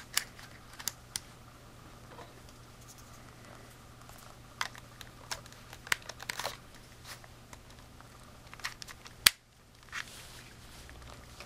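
Small plastic clicks and handling rustles from a Canon PowerShot SX230 HS compact camera as an SD card and battery are pushed into its spring-loaded compartment, with one sharp click about nine seconds in, the loudest sound.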